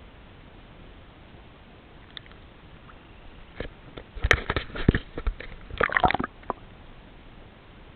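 Kayak paddling: a quick cluster of sharp knocks and sloshing splashes, like the paddle dipping and bumping against the hull, for about three seconds around the middle, over a steady low hiss.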